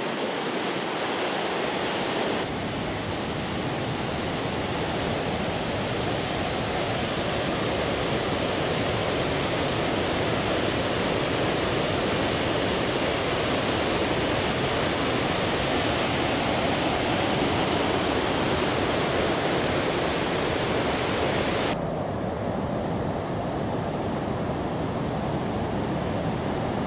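Victoria Falls, the Zambezi River falling into its gorge: a loud, steady rush of water, with an abrupt shift in tone about two seconds in and again near the end.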